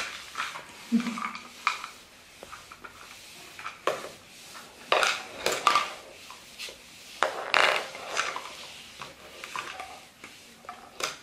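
Small plastic containers, lids and tubes knocking and scraping on a wooden floor as a baby monkey handles them: irregular clattering, with a few louder knocks.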